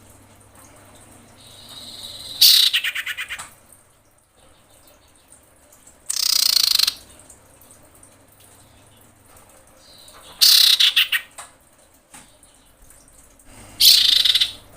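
Female common iora calling: four harsh calls a few seconds apart. Three are rapid stuttering trills and one is a raspy buzz. This is the call of a female in breeding condition summoning a male.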